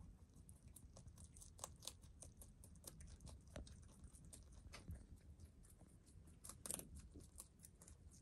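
A rabbit chewing leafy greens: a quick run of faint, crisp crunches and nibbles, with a louder burst of crunching about six and a half seconds in.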